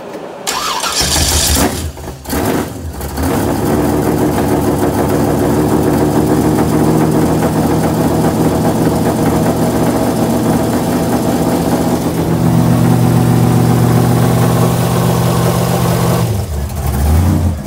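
Stroker big-block Chevy V8 starting up, faltering twice in the first three seconds, then running at a steady idle, heard from beneath the car. About twelve seconds in, the idle note settles lower and heavier.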